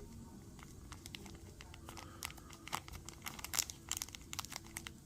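Light, irregular clicks and crinkling of small carburetor parts being handled on a workbench, thickest from about two seconds in, over a faint steady low hum.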